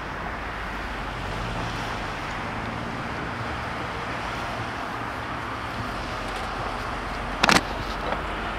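Wind and distant road traffic noise, with a low vehicle hum through the middle. A sharp knock about 7.5 seconds in, with a fainter one just after, from the camera being handled as it pans.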